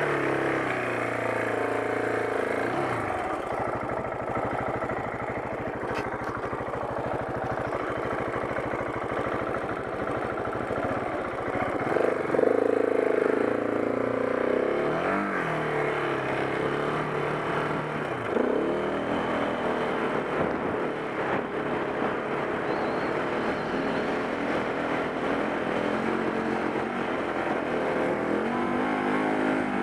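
KTM 690 Enduro R's single-cylinder four-stroke engine pulling through soft sand. The revs rise and fall again and again, loudest as it revs up about twelve seconds in.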